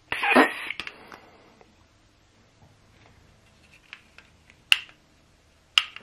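A short, breathy blow into a plastic Pez parrot whistle at the start, lasting about half a second and falling in pitch. Two sharp plastic clicks come near the end, about a second apart.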